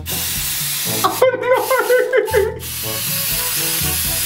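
Aerosol can of pink colour spray hissing in long sprays, with a short break near the middle.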